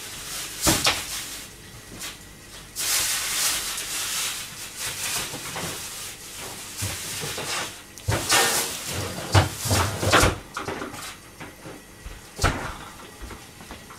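Kitchen handling noises: a few sharp knocks and clatters, like cupboard doors or utensils being set down, about a second in and several more in the second half. Between them come stretches of hissing, rustling noise.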